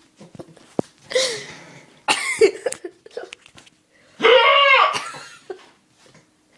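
A man hiccuping loudly: sudden voiced hiccups, the loudest just past four seconds in.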